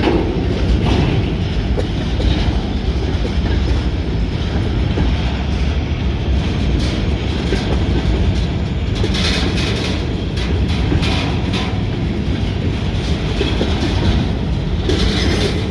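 Freight train rolling slowly past: a steady heavy rumble of railcars, with the wheels clacking over rail joints in clusters about nine seconds in and again near the end.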